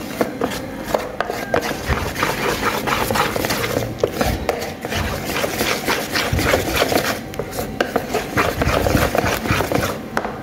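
Wire balloon whisk beating a thick flour-and-egg cake batter in a pan: fast, continuous scraping and clicking of the wires against the pan, easing off briefly a couple of times.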